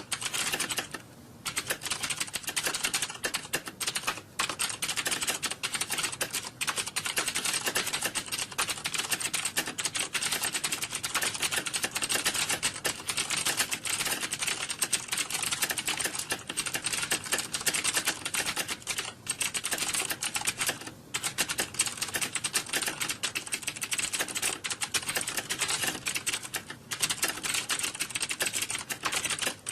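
Fast, continuous typing on a computer keyboard: a dense stream of key clicks, broken by a few short pauses.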